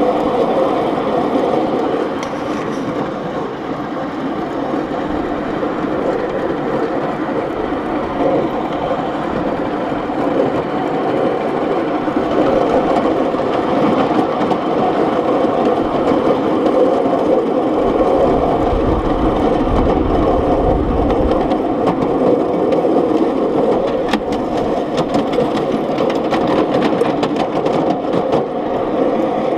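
Coal-fired 7.25 inch gauge miniature steam locomotive running along its track, heard close up from the driver's seat on the tender: a steady mechanical running sound of the engine and wheels on the rails. A low rumble joins in for a few seconds about two-thirds of the way through.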